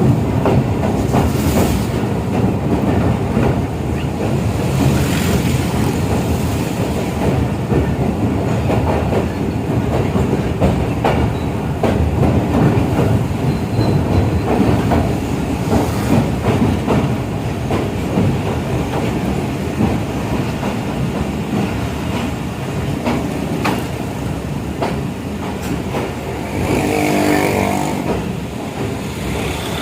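A train running steadily: a continuous rumble of wheels on rails with irregular clicks and clatter. Near the end there is a brief drawn-out pitched tone.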